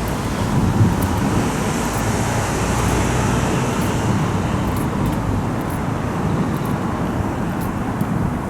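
Road traffic noise: a steady rumble with the tyre hiss of passing cars, brightest about two to four seconds in.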